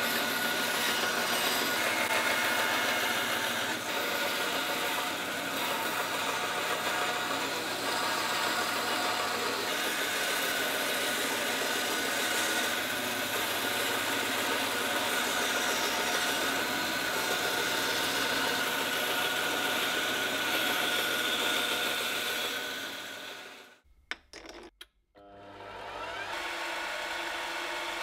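Small electric power saw running steadily while its narrow blade cuts a curve through thick wooden discs, stopping about three-quarters of the way through. After a short quiet gap a lathe starts running, turning a wooden disc against a cutting tool.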